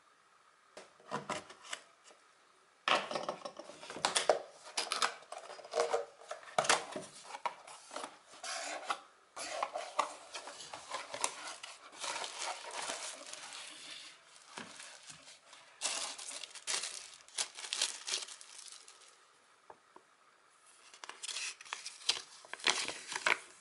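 Cardboard packaging being handled: box flaps and inserts scraping and clicking, and a plastic-wrapped lamp rustling, in irregular bursts. There is a short lull, then a paper manual is unfolded and crinkled near the end.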